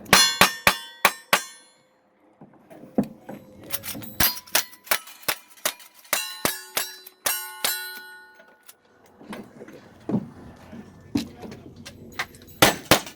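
Gunshots in quick strings, with the clang of bullets hitting steel targets, each plate ringing on briefly at its own pitch. A fast run of shots comes first, a longer string follows a few seconds in, and a loud pair comes near the end.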